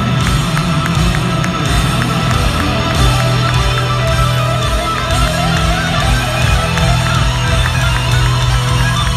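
Rock band with electric guitars playing loud heavy-metal-style music live through an arena sound system, recorded from the crowd.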